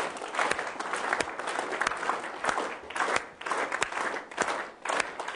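Large audience clapping together without a break: many hands clapping at once.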